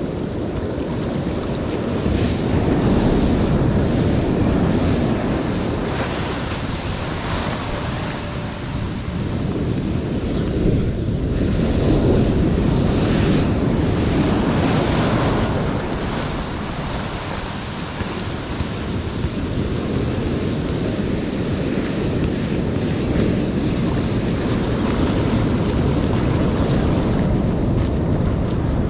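Sea surf washing over rocks, swelling and easing every few seconds, with wind buffeting the microphone.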